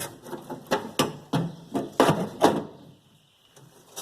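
A quick run of sharp knocks and clicks, about seven in two and a half seconds, then they stop. It is metal door-latch parts and tools being worked at a car door's handle mechanism.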